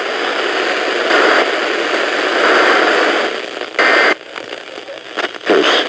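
Radio receiver static: a loud, steady hiss that weakens and flickers a little past halfway, with a brief loud burst around four seconds in.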